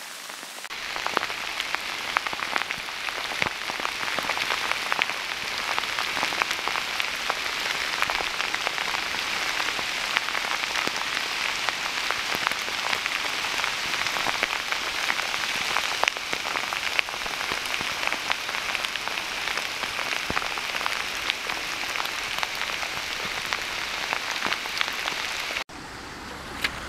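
Steady rain falling, a dense patter of drops with many ticking close to the microphone; it cuts off abruptly near the end.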